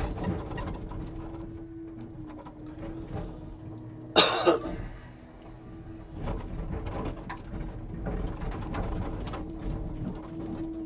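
Timber truck's hydraulic loading crane at work: a steady hum runs under scattered knocks and clatter, with one loud, sharp noisy burst about four seconds in.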